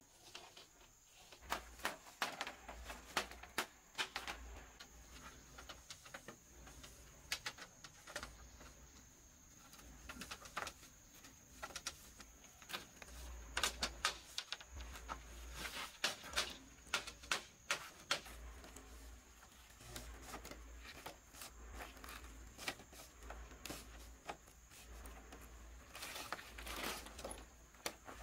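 Irregular clacks, knocks and taps of split bamboo strips being handled and laid into a trellis lattice, some in quick clusters, with a metal blade tapping at a bamboo joint near the end. A faint steady high tone runs underneath.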